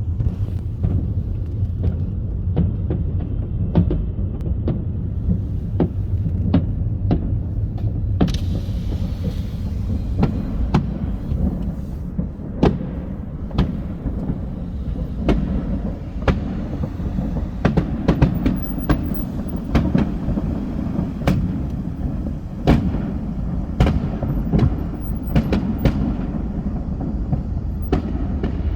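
Fireworks display: a steady low rumble with frequent sharp bangs and pops, several a second at times, and a brief hissing crackle about eight seconds in.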